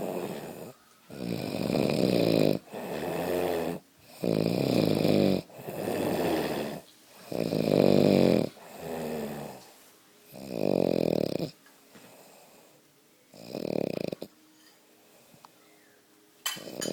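Heavy snoring: a run of loud snores roughly every second and a half, thinning after about eleven seconds to two more, spaced further apart.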